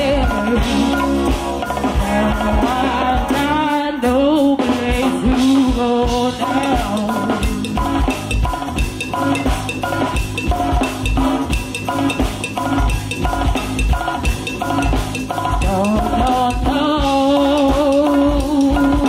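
Live band playing a song: a steady drum-kit beat with bass under a wavering melody line. The low end drops out briefly about four seconds in, then the drum beat picks back up.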